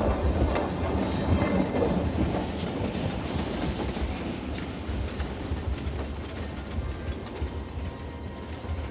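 Train running on the rails with a rumbling wheel clatter that swells in the first second or two, then slowly fades.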